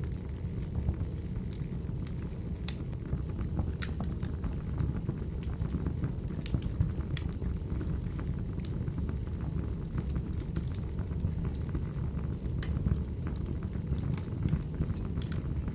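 Crackling wood fire: a steady low rumble of burning with irregular sharp pops and crackles scattered throughout.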